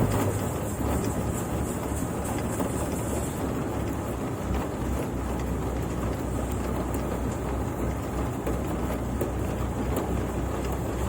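Rice paddy machine running steadily, its engine hum under a dense, even rushing noise; the low hum shifts in pitch right at the start.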